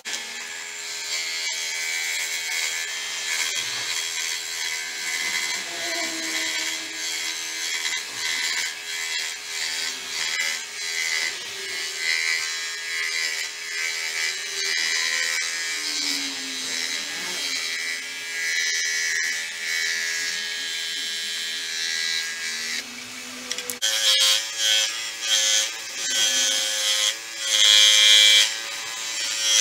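An electric power tool running under load, with a wavering pitch as it bites into the work; about 24 seconds in its sound changes abruptly and becomes louder and more uneven.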